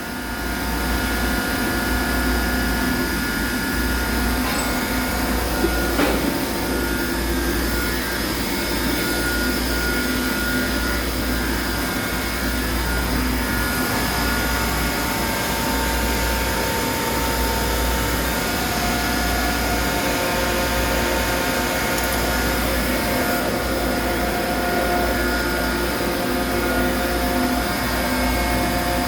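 CNC turning machine running steadily: a low rumble under several steady whining tones, with a single sharp click about six seconds in and the tones shifting in pitch about two-thirds of the way through.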